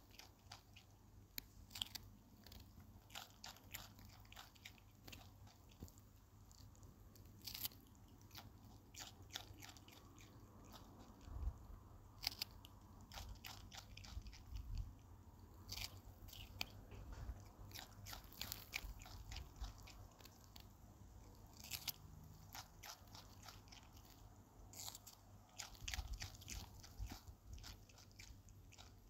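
Common brushtail possum biting and chewing a slice of fresh red capsicum: faint, irregular, sharp crunches of the crisp flesh throughout.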